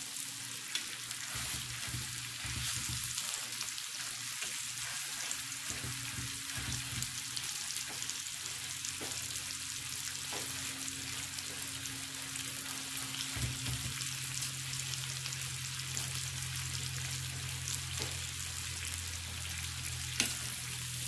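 Pot roast sizzling as it browns in oil in a stainless electric skillet, with a few light clicks and a sharper click near the end.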